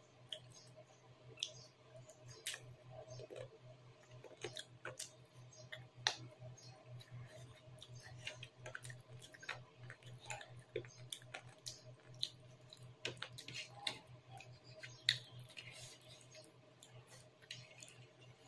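Close-up eating sounds of chicken curry and rice eaten by hand: chewing with irregular wet mouth smacks and clicks, and fingers squishing food on the plate, over a low steady hum.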